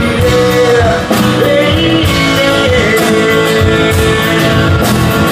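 A rock song: a singer holding long, gliding notes over guitar, with a steady beat of drum hits.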